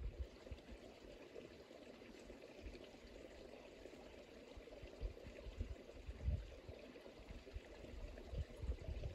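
Small mountain stream flowing over rocks, a steady rush of running water. Irregular low rumbles on the microphone come and go throughout, strongest about six seconds in.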